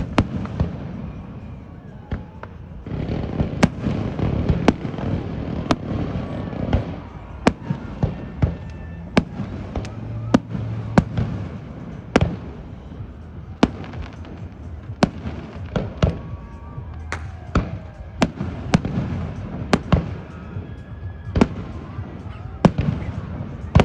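Aerial fireworks display: sharp shell bursts going off about once a second over a continuous low rumble, with a brief lull about two seconds in.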